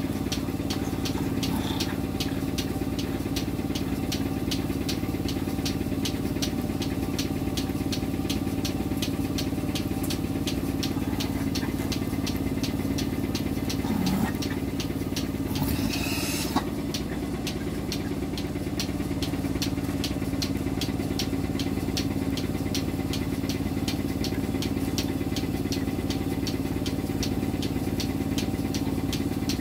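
Electric cow milking machine running: the steady hum of its vacuum pump with the pulsator's fast, even ticking, and a brief hiss about halfway through.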